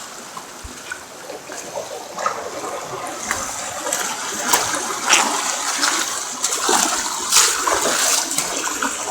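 Water rushing and splashing, a steady wash with frequent short splashes through it.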